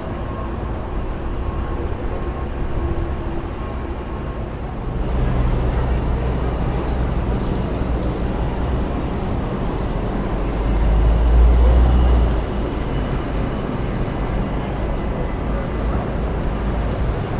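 City street traffic noise: a steady wash of passing vehicles with a low rumble. The rumble grows louder about five seconds in and swells for a couple of seconds around ten seconds in.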